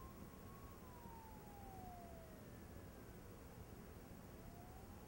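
Faint distant police siren wailing: one slow fall in pitch, then rising again near the end.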